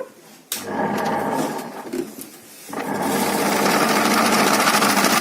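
A click, then a washing machine's wash motor running with its new capacitor, driving the pulsator; it stops briefly about two seconds in and starts again. It runs steadily under power, no longer stalling as it did with the weak capacitor.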